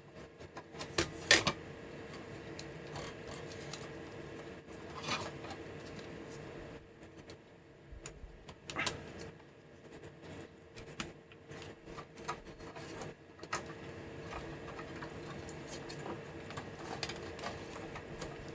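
Clicks, taps and knocks of a metal drive bracket and adapter being handled and fitted into a desktop PC case among its ribbon cables, irregular and scattered, with the loudest knocks about a second in and about nine seconds in. A faint steady hum runs underneath.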